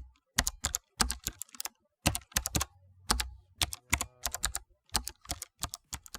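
Quick runs of sharp clicks and taps, several a second, with short gaps between the runs.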